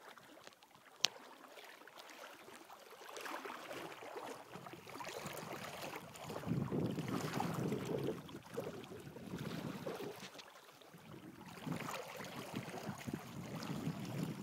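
River water sloshing and splashing around a person's legs as they wade across a shallow river, in uneven surges that grow louder about halfway through and again near the end. A single sharp click sounds about a second in.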